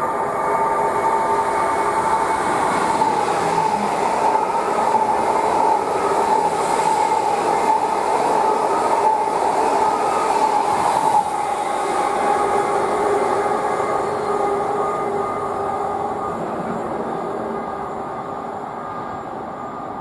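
Greater Anglia Class 745 FLIRT electric multiple unit passing through without stopping: a steady electric motor whine over the running noise of wheels on rail. It is loudest as it runs past, then fades over the last several seconds as it draws away.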